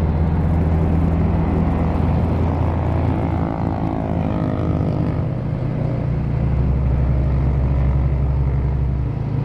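Vehicle engine running steadily at low revs, with a second engine note falling in pitch a few seconds in.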